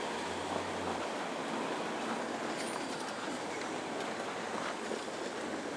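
Steady outdoor street noise, an even rush with no single clear source, with a low hum during the first second.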